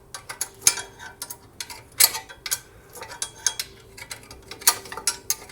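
Open-end wrench clinking against a stubborn nut as it is worked loose a fraction of a turn at a time, with irregular metallic clicks, several a second.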